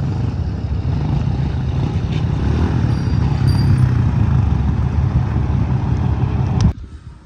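2024 Honda CRF110F pit bike's small air-cooled single-cylinder four-stroke engine running steadily as the bike is ridden, then cutting off suddenly near the end.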